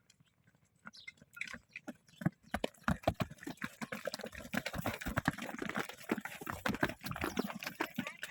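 Livestock moving about in a pen: dense, irregular clattering and knocking that starts about a second in and grows busier.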